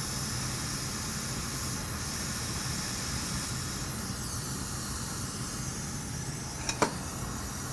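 Hot air rework station blowing a steady hiss of hot air onto a soldered metal shield plate to melt its solder so the plate can be lifted off. Two light ticks near the end.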